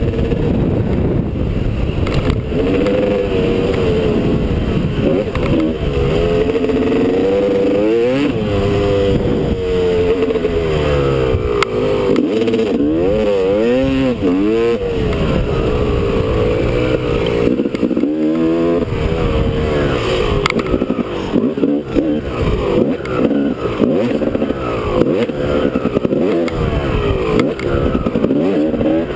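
Two-stroke Honda dirt bike engine under hard riding, revving up and dropping off again and again as the rider accelerates, shifts and backs off over the jumps, heard from the rider's helmet camera.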